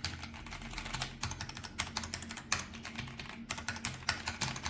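Keys of an ASUS ROG Azoth mechanical keyboard with ROG NX switches being pressed in quick, irregular succession, the gray keys being typed on, each keystroke a sharp click.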